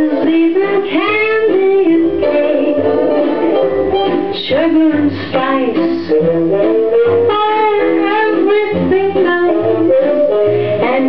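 Early-1950s pop record playing: a woman singing a bright melody over a small band with guitar and a bass line stepping from note to note.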